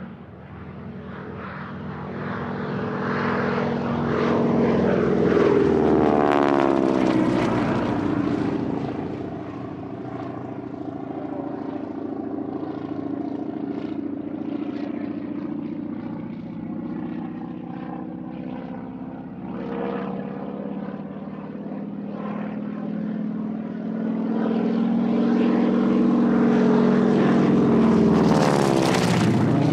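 Piston-engined propeller airplane flying past twice, its engine drone rising in level and then dropping in pitch as it passes: once about six seconds in and again near the end, with a steadier, quieter drone in between.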